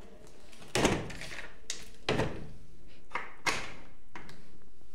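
A door's metal slide bolt being worked and the door handled: a series of knocks and rattles, the loudest about a second in.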